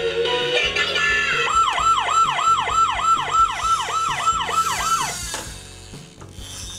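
Robocar Poli toy police car's electronic siren, a fast repeating up-and-down wail about three times a second, sounding for about three and a half seconds before it cuts off. A short electronic tune plays before it.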